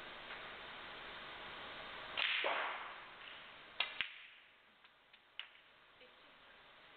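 Snooker cue striking the cue ball, then the cue ball clicking sharply into a red a moment later, followed by a few softer knocks as the balls run on and the red drops into a corner pocket. A brief loud rush of noise comes about a second before the strike, over a steady hiss.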